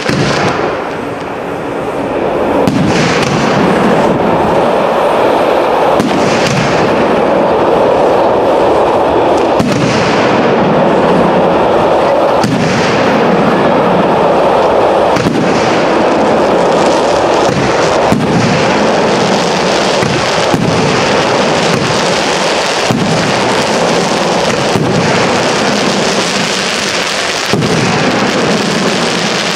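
Aerial firework shells bursting in a professional display: sharp bangs every one to three seconds over a continuous wash of overlapping bursts and crackle, after a brief lull about a second in.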